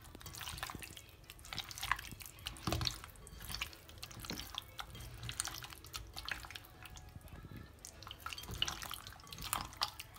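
Bare hands squishing oiled, spice-coated raw chicken pieces in a glass bowl: irregular wet squelching.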